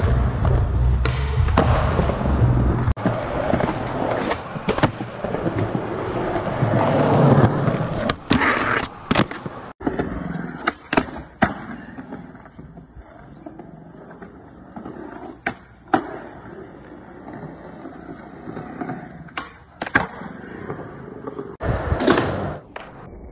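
Skateboard urethane wheels rolling over concrete, loud and close in the first part. Then quieter riding with a series of sharp clacks as boards are popped and land, and a loud rush of rolling near the end.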